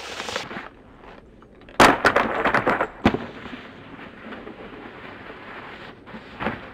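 A snowboard slamming down hard into snow about two seconds in, with a scraping rush of snow and a second sharp knock about a second later, then a steady hiss.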